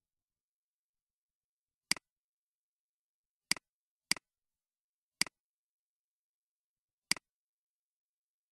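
Computer mouse clicks: five single sharp clicks at irregular intervals, with silence between them.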